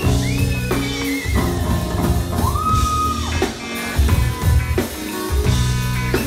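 Live rock band playing through amplifiers: electric guitar, electric bass guitar and drum kit, with a driving bass line under the drums and one held high note about halfway through.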